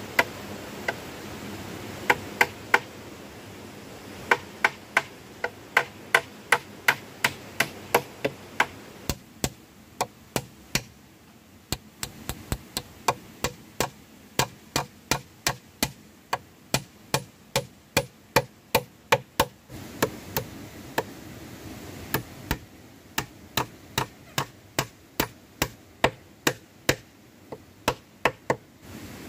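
A hand tool striking over and over, about two sharp blows a second, in runs with short pauses: hammering or chopping at wood.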